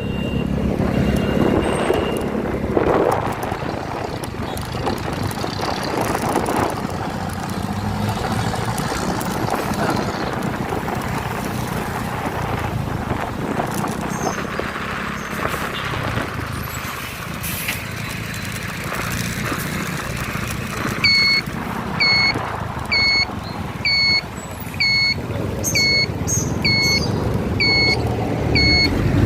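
A vehicle on the road, with steady engine and road noise. About two-thirds of the way through, an electronic beeper starts up, sounding a short high beep about every 0.7 s, each ending in a slight downward dip.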